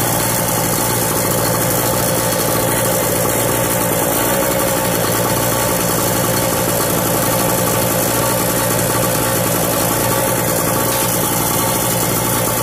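Harbor Freight Storm Cat portable generator's small two-stroke engine running steadily at a constant speed.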